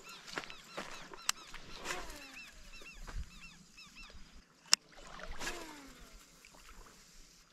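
Birds calling in repeated short chirps, with a few falling calls and two sharp knocks, the louder one a little past halfway.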